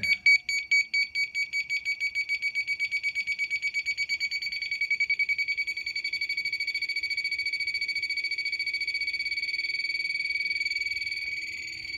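Small electronic beeper driven by a 555 timer circuit, giving a high-pitched pulsing beep. The beeps speed up as the frequency is turned up by a potentiometer and, about halfway through, blur into a steady tone.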